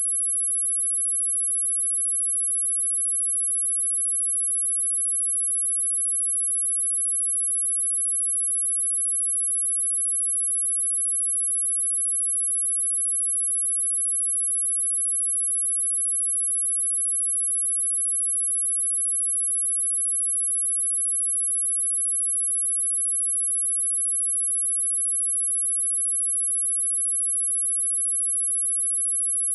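Steady, unbroken 10807 Hz sine-wave test tone: a single high-pitched whistle at constant level.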